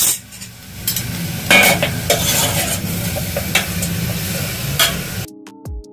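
Metal spoon stirring and scraping wet sardines in an aluminium pot over heat, with a steady sizzle as the water on the fish cooks off. Music with a beat cuts in suddenly near the end.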